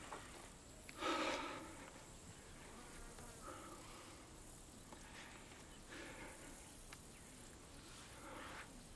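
Flying insects buzzing faintly, with the loudest buzz about a second in and fainter ones coming and going after it.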